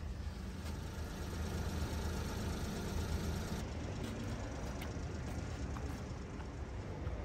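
Steady low rumble of a vehicle engine idling, with a few faint clicks over it.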